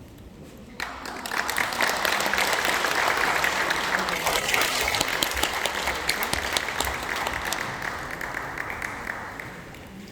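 Audience applauding, starting suddenly about a second in, holding strong, then dying away near the end.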